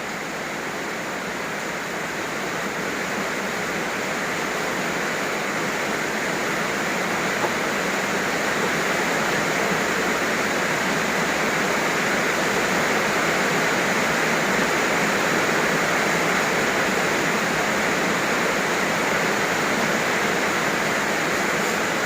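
Heavy rain pouring steadily, growing a little louder over the first several seconds as the downpour gets heavier.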